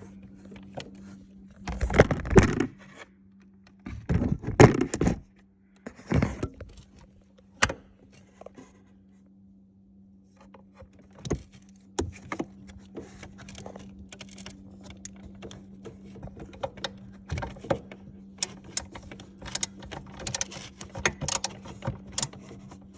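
Hand tools and metal bolts clinking, rattling and scraping as the bolts holding the plastic cover panel over the battery housing are undone, with a run of quick clicks in the second half. A steady low hum runs underneath.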